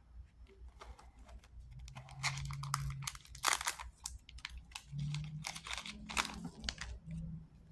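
Foil trading-card pack wrapper being torn and crinkled, with cards rustling as they are handled: a run of irregular crackles and rustles.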